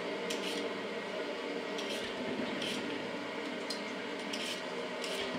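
Handheld vegetable peeler scraping strips of skin off a raw sweet potato: short rasping strokes at an irregular pace, about eight in all.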